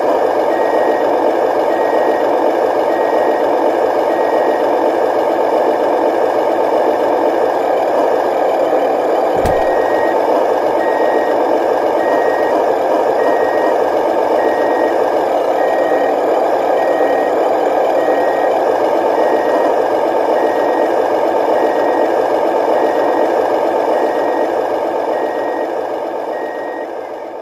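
Steady truck engine drone with a reversing alarm beeping roughly every half second, the engine-and-beeper sound of a model truck. The beeps stop for a few seconds and come back with a short thump about nine seconds in.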